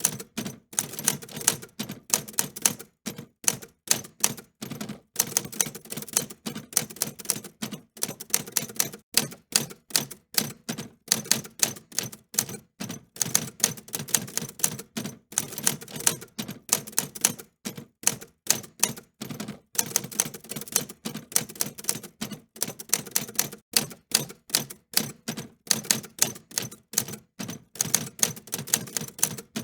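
Typewriter being typed on: a quick, uneven run of sharp key clicks and typebar strikes, several a second, broken by short pauses.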